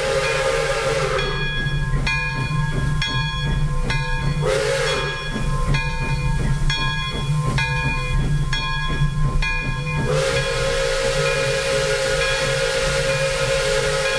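Steam whistle of Pere Marquette 1225, a Lima-built 2-8-4 Berkshire steam locomotive, blowing a long breathy blast at the start, a short toot about four and a half seconds in, and another long blast from about ten seconds in. Between the blasts a ringing clang repeats about twice a second.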